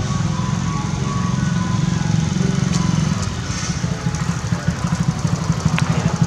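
A small engine idling nearby, a steady low drone with a fast, even pulse.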